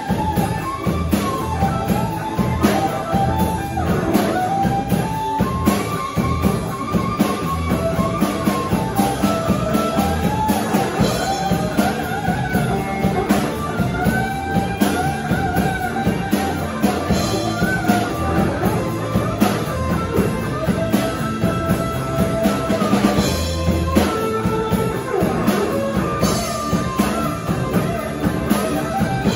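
Live rock band playing: electric guitar, bass guitar, drum kit and keyboard together, with melodic lines over a steady drum beat.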